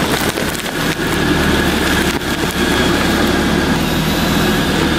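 Mercedes car's engine running close to the ground as the car creeps onto a paper-and-cardboard piñata, with a steady crackling throughout.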